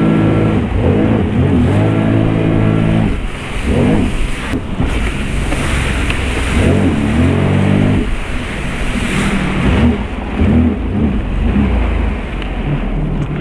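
Jet ski engine revving up and down as the craft carves turns on the water, over a steady rush of water and spray.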